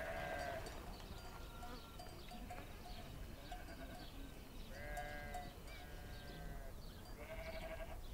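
Sheep bleating: several wavering calls at different pitches, the strongest right at the start and again about five and seven and a half seconds in.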